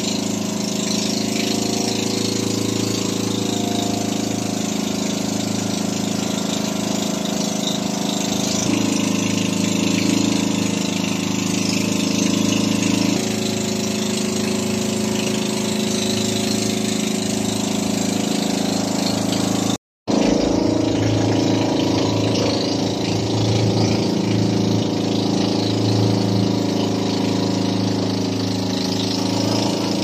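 Inboard engine of a motorized outrigger boat (bangka) running steadily under way, over a hiss of wind and water. Its pitch steps slightly a couple of times, and the sound drops out for a moment about two-thirds through.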